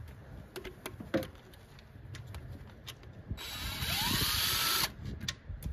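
A few light metal clicks, then a cordless impact driver runs for about a second and a half and stops, loosening a 14 mm bolt on the engine.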